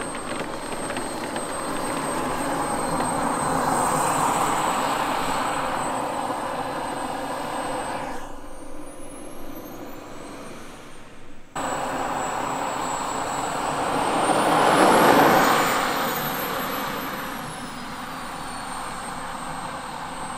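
Turbine of a giant-scale radio-controlled F-100 Super Sabre jet running at taxi power: a high steady whine over a rushing hiss. The sound cuts abruptly to a quieter stretch for a few seconds, then returns, and about three quarters of the way in the whine rises sharply in pitch and loudness and falls back again, a short burst of throttle.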